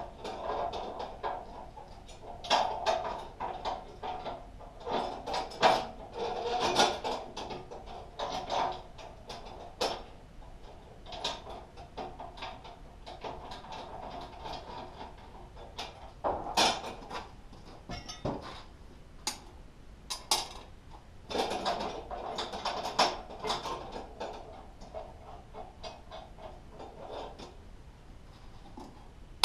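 Hand tools and steel bolts clinking and rattling against the steel mounting brackets of a Betstco EFGC-155 flail mower as the bracket bolts and nuts are worked. The sound comes in irregular bursts of small metallic knocks and clatters, with quieter stretches between.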